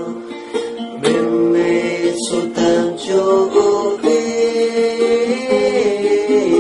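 A song with guitar and a singing voice holding long, slowly changing notes.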